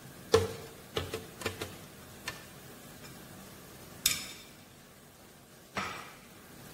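Light taps and knocks as ingredients go into a plastic blender jar. Two louder clatters follow, about four and six seconds in.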